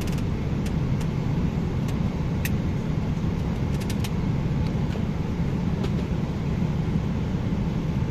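Steady low drone of a jet airliner's cabin in cruise flight, engine and airflow noise, with a few faint clicks in the first four seconds.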